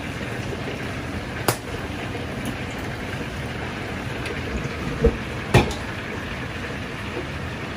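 Steady hiss and rumble of a commercial kitchen range with oil deep-frying. It is broken by a sharp clack of metal utensils about a second and a half in, and two more, the second the loudest, about five seconds in.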